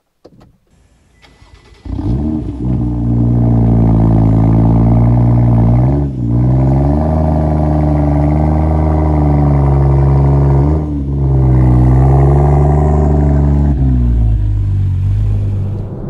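BMW M2 F87's N55 turbocharged straight-six, fitted with a Bob Williams modified exhaust, starting up about two seconds in with a quick flare of revs, then idling loudly and steadily. The revs dip briefly and recover twice, and settle a little lower near the end.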